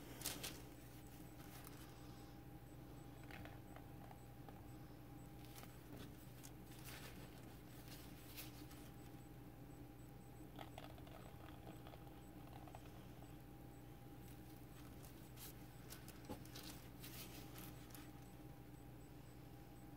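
Near silence: a steady low hum of room tone, with a few faint scattered taps and light scratches as a wooden skewer is handled over a wet-painted canvas.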